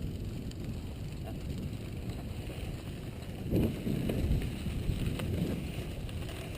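Mountain bike rolling over a rough trail: a steady low rumble of tyres and frame with wind buffeting the microphone, and a few heavier jolts about midway.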